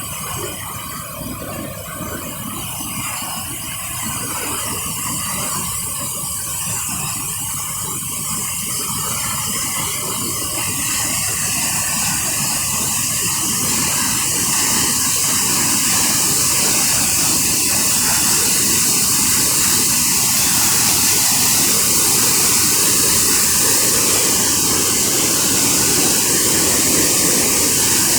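Waterfall: a steady rush of falling water, growing gradually louder over the first fifteen seconds or so and then holding steady.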